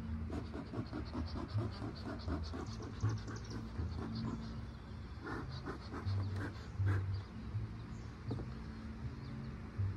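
Bee smoker's bellows squeezed again and again, puffing smoke in breathy bursts. There is a quick run of about four puffs a second for the first few seconds, then a few slower puffs up to about seven seconds in.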